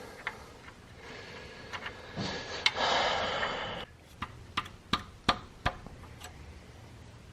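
Irregular sharp clicks and taps of small engine parts and hand tools being handled during engine reassembly, with a brief rustling noise a little over two seconds in.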